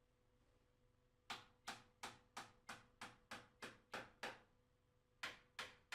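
Hammer tapping panel pins through a wooden dado rail into a wall: a run of about ten quick, even strikes, a short pause, then three more near the end.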